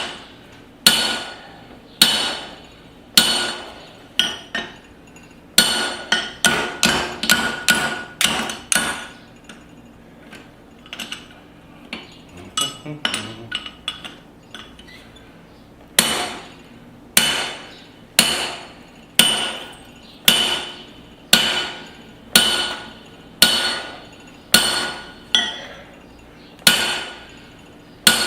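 Hand hammer striking a punch driven through the eye of a small hot steel hammer head on the anvil, working to shear the slug out; each blow rings. The blows come about once a second, with a quicker run of blows a few seconds in and lighter taps in the middle.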